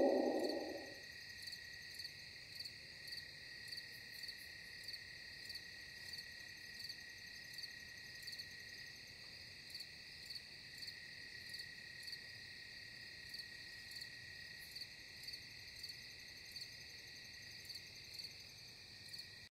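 Faint crickets chirping, about two chirps a second over a steady high insect drone. In the first second the tail of a louder, falling wail fades out.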